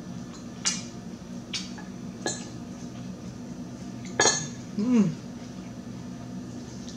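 Metal fork clinking and scraping on a ceramic plate: four sharp clinks over the first four seconds. About five seconds in comes a brief hummed 'mm' whose pitch drops at the end.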